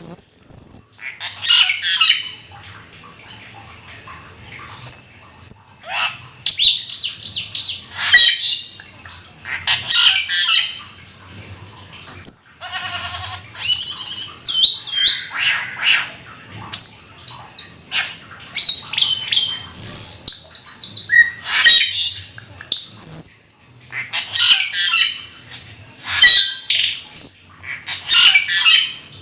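A jalak keling starling in full song: a varied run of whistles, rapid chattering and harsh squawks, sung in phrases a second or two long with short pauses between them.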